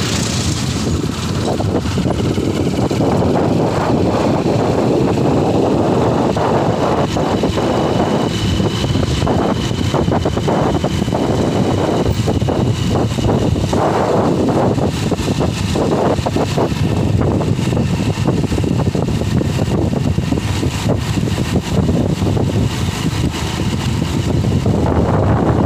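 Hero Honda Passion Plus motorcycle's single-cylinder four-stroke engine running steadily while the bike is ridden at road speed, along with road and wind noise.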